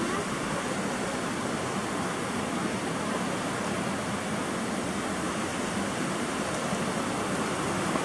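Steady rush of a river's waterfalls and rapids over rock, an even unbroken roar of water.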